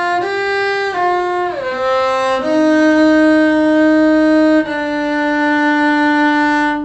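Cello bowed in a slow practice exercise: a few short notes, then two long held notes of about two seconds each, the second one lower.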